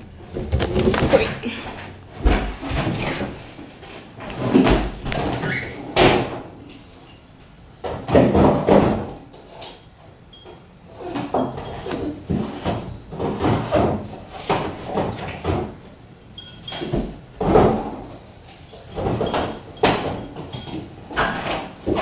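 Refrigerator being loaded: irregular knocks and clatter of the fridge door and of drink bottles set onto its shelves, with a sharp knock about six seconds in.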